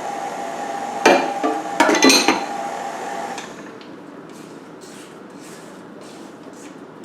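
Several sharp knocks and clinks of kitchenware and utensils against a mixing bowl, one about a second in and a quick cluster around two seconds, then faint, repeated scraping strokes.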